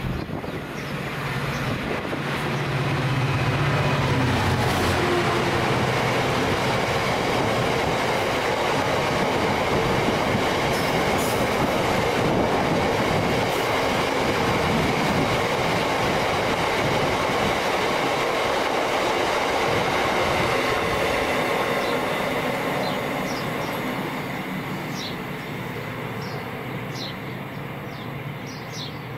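Class 66 diesel-electric locomotive passing with its two-stroke EMD V12 engine running, followed by a long train of box wagons rumbling and clattering over the rails. The sound swells in the first few seconds, holds steady, and fades as the wagons draw away near the end.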